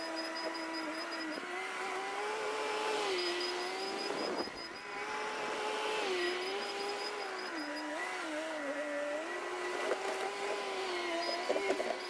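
Bobcat T650 compact track loader's diesel engine running as the machine drives and works its bucket, the engine note stepping up and down several times with changing throttle and load.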